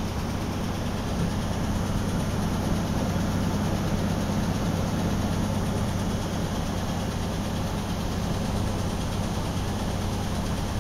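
Heavy vehicle engine running steadily, a constant low hum with no change in speed.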